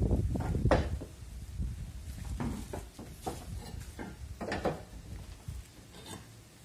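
Clay roof tiles knocking and clacking against each other as they are handled and laid on a roof, in scattered irregular knocks, over a low rumble in the first second.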